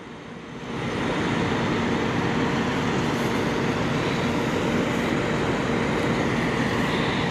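Steady rumble of semi-truck engines and traffic, rising about a second in and then holding level, with a faint hum running through it.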